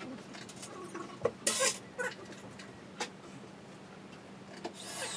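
Scattered knocks and clicks of a particleboard wall unit's panels and fittings being handled during assembly, with a short scraping rustle about a second and a half in. Near the end a cordless drill-driver starts up with a rising whir.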